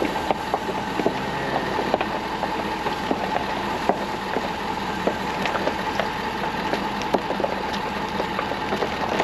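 Pickup truck engine running steadily at low speed, with a steady hum and scattered light clicks.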